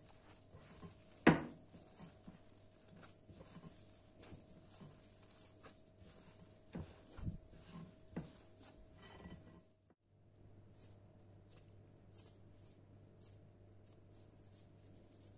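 Hands rubbing and squeezing crumbly flour-and-butter cookie dough in a glass bowl: soft irregular pattering and squishing. A sharp knock sounds about a second in, with a few softer knocks later on.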